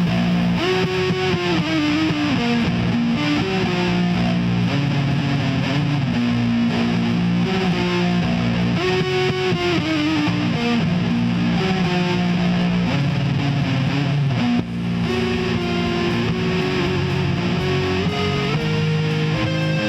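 Instrumental break in a nu-metal song: distorted electric guitar plays a melodic line over sustained low notes, with no vocals. The level dips briefly about fifteen seconds in.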